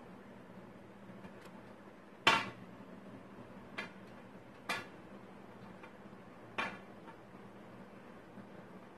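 Cats' paws and claws knocking on a glass tabletop as two cats scuffle: four sharp clinking taps, the first about two seconds in and the loudest.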